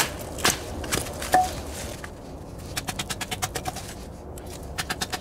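Wooden baton knocking on the spine of a Glock field knife driven into seasoned wood, about two sharp knocks a second for the first second and a half. Then a run of quick, light cracks as the wood splits apart under the blade.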